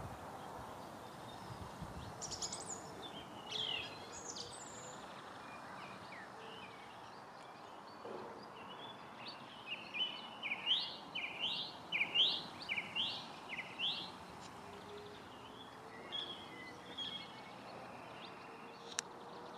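Songbirds singing: scattered short high chirps, with a quick run of about a dozen sharp repeated notes in the middle, over a steady faint background hiss.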